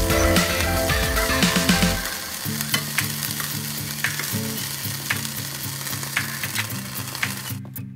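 Beef strips sizzling as they fry in a hot pan, with scattered sharp clicks of metal tongs as pieces are dropped in and moved.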